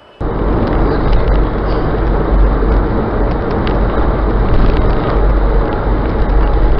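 Car on the road: steady, loud road and engine noise with a heavy low rumble, starting abruptly.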